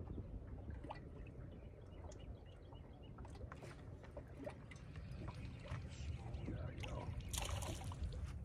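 Water lapping and trickling against a fishing boat's hull, with scattered light clicks and knocks, and a short splash about seven and a half seconds in as a small hooked crappie is swung out of the water.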